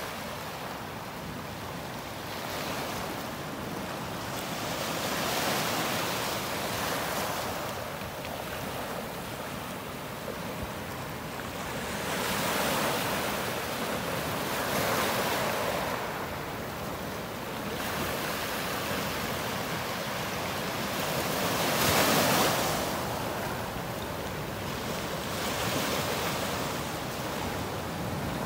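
Small sea waves breaking and washing up a pebbly beach, the surf swelling and falling back every few seconds.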